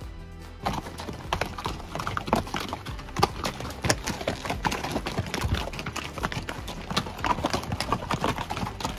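Hooves of a string of pack mules clopping on a rocky dirt trail as they walk past, many uneven hoof strikes overlapping, starting just under a second in.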